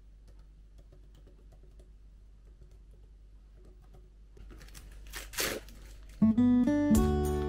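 Faint tapping of laptop keyboard keys, then a short noisy swish about five seconds in, and acoustic guitar background music starts loudly about six seconds in.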